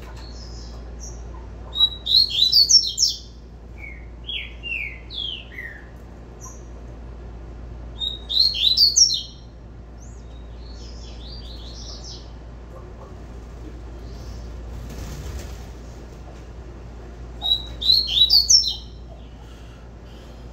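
A caged double-collared seedeater (coleiro) singing its 'tui-tui' moleque song: three loud phrases of quick, high, falling notes, each about a second long and spaced several seconds apart, with softer single notes between them.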